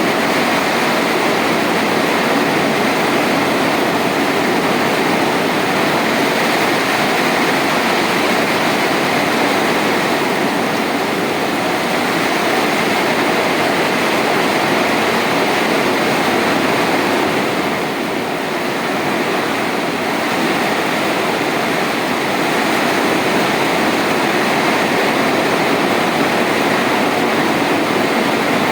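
Heavy rain pouring down in a steady, loud hiss, easing slightly for a moment about eighteen seconds in.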